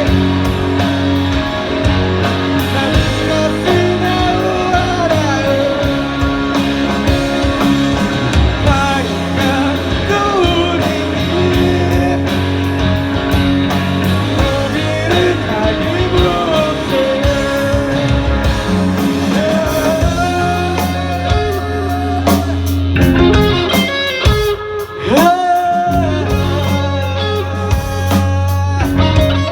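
Rock band music: a melodic guitar line with gliding, bent notes over bass and drums.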